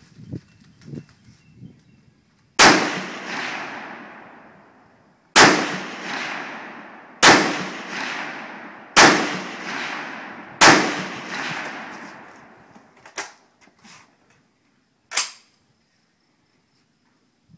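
Rifle fire: five loud shots about two seconds apart, each followed by a long rolling echo. Three fainter sharp cracks come near the end.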